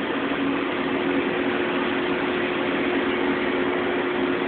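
Steady industrial machinery noise from a factory: an even mechanical rush with a constant low hum running through it.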